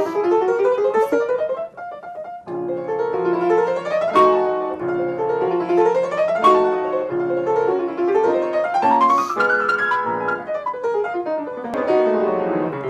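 Acoustic piano played in a quick passage of repeated rising runs and arpeggios, with a short break about two seconds in and a long climbing run near the middle. The sustain pedal is held through the chromatic run, where the teacher says it should be lifted.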